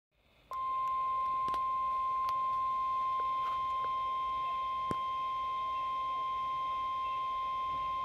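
Steady single-pitch warning alarm tone, the 1050 Hz tone that opens a weather-radio warning broadcast, playing through the speaker of a Midland WR-120 weather alert radio. It switches on about half a second in and holds unbroken, with a few faint clicks, announcing a severe thunderstorm warning.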